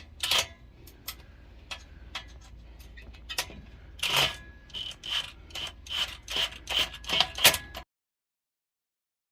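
Hand ratchet clicking as it tightens an exhaust clamp, with scattered metallic clicks and then a steady run of strokes about three a second that grows louder. The sound cuts off abruptly near the end.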